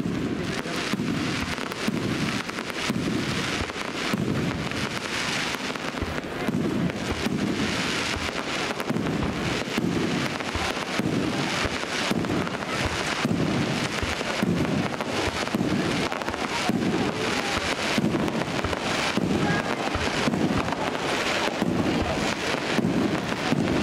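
Fireworks display going off in a continuous barrage: many sharp bangs and crackles, one after another, over low booms.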